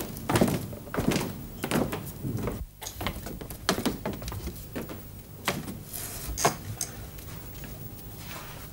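Footsteps of two people walking across a floor and up steps: a series of sharp knocks and thuds, most frequent in the first half, thinning out after about seven seconds.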